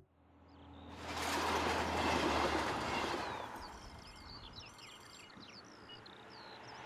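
A train passing on the line: a rushing rumble that swells, is loudest about two seconds in and fades away by about four seconds. Small birds chirp after it dies down.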